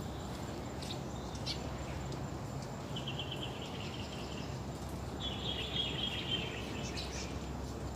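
Eurasian tree sparrows chirping, with a few sharp single chirps and then two quick runs of chatter about three and five seconds in, over a steady low background rumble.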